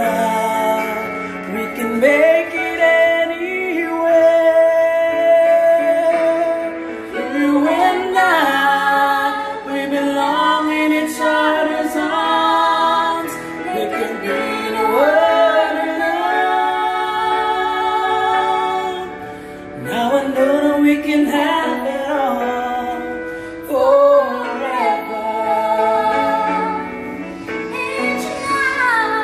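A woman singing a slow love ballad over a backing track, with long held notes that waver in vibrato.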